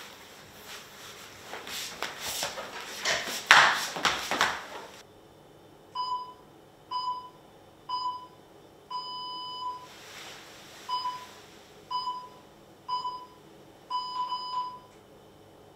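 A rubber yoga mat unrolled onto a wooden floor, a few rustling swishes. Then a run of short electronic beeps, about one a second, two of them held longer.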